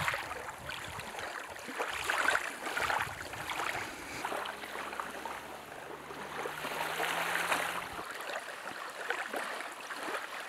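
Small waves lapping and washing on a sandy lagoon shore, a soft uneven rush that swells and fades.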